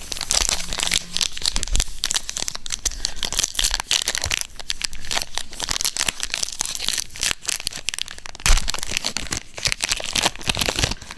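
Plastic foil trading-card pack wrapper crinkling and tearing as it is ripped open and handled, a dense run of crackles, with one louder knock about three-quarters of the way through.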